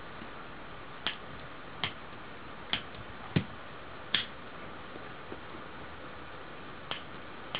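Sharp, short clicks of a lighter's piezo igniter pressed again and again, about seven clicks at uneven intervals with a pause in the middle, over a steady faint hiss.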